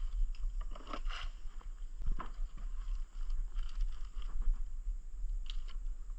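A wet fishing net being gathered up and stuffed into a container at the side of a wooden boat: irregular rustling and scraping with a few sharp knocks, over a steady low rumble.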